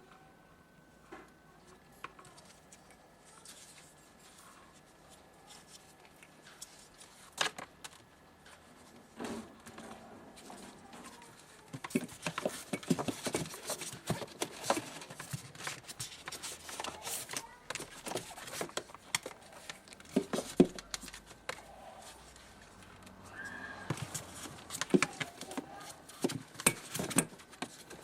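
Irregular clicks, knocks and clattering of parts being handled during repair work, sparse at first and then busy for the second half. A faint steady high tone runs under it.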